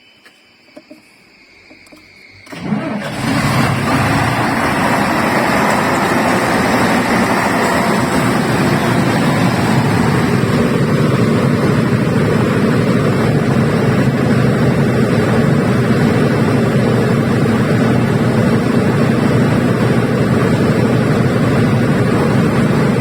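350 kVA Iveco diesel generator set starting up: after a few faint clicks the engine cranks and catches about three seconds in, then runs loud and steady.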